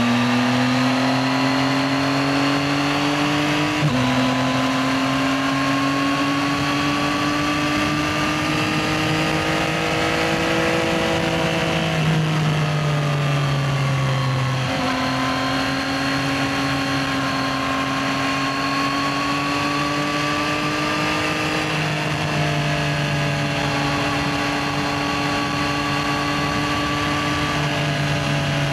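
Yamaha XSR900's 890 cc inline three-cylinder engine running under way. The engine note climbs slowly in gear, with sudden gear-change steps about four seconds in and twice more later. The pitch falls as the bike slows near the middle.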